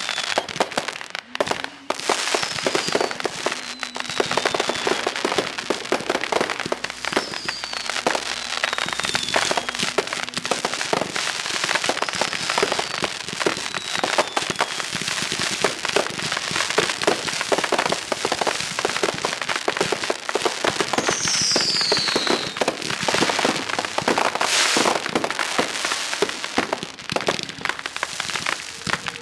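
Fireworks display: dense rapid crackling and popping of bursting shells, with several falling whistles and one especially loud bang near the end.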